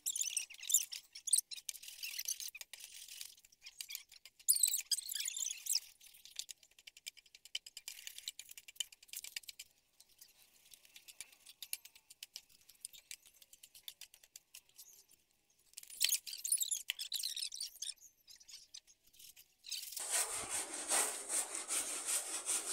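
Long-handled spade scraping and chopping through weeds and soil, heard as scratchy rustling with many small clicks that comes in bursts, quieter in the middle stretch. About twenty seconds in, a fuller, steadier rustling noise takes over.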